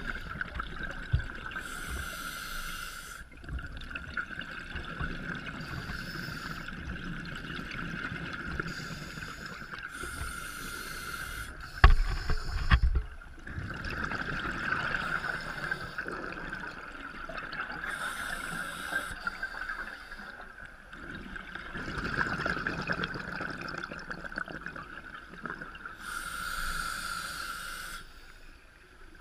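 Scuba diver's regulator breathing heard through a GoPro underwater housing: several bursts of hissing exhaust bubbles at uneven intervals over a steady muffled hum, with a short knock about twelve seconds in.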